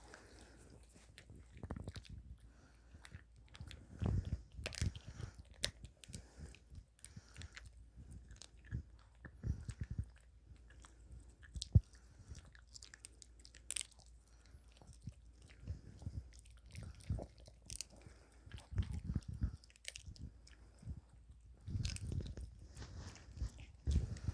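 A dog chewing and crunching a treat, with irregular crunches and pauses between them.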